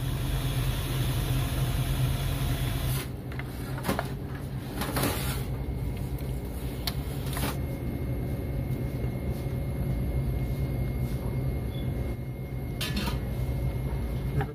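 Steady low hum of kitchen equipment, with a hiss over the first three seconds. Scattered knocks and clinks of a ladle against the pot and plate follow, a few around four to seven seconds in and again near the end, as curry is dished up.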